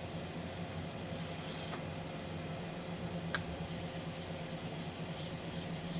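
Steady low background hum, with two faint light clicks about two and three and a half seconds in.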